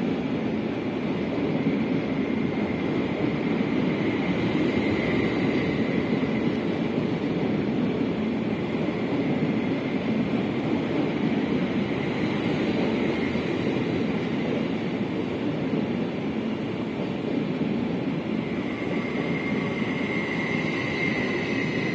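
SOB Traverso (Stadler RABe 526) electric multiple unit running at a station platform: a steady rumble, with a faint high whine about five seconds in and again near the end.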